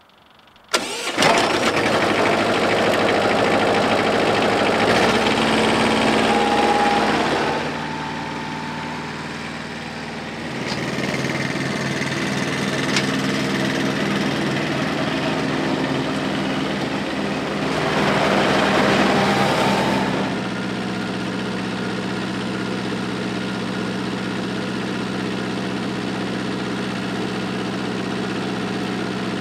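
Iseki SXG216 ride-on mower's small diesel engine starting about a second in, then running steadily as the mower drives about. It gets louder and quieter in turns, louder from the start to about 7 s and again around 18–20 s, then holds an even level.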